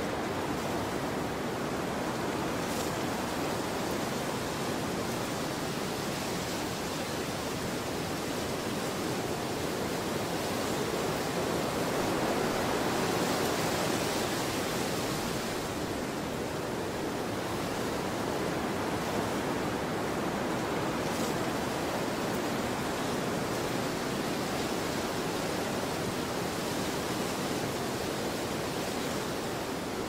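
Steady rushing wind ambience, swelling a little around the middle and easing back.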